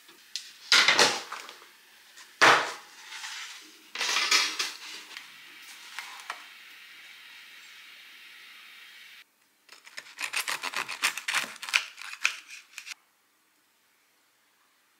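Metal canelé mold pan clattering: a few loud knocks and scrapes as the hot tray is handled at the oven. After a cut comes a quick run of knocks and clicks as the mold is tapped to turn the canelés out onto a wooden cutting board.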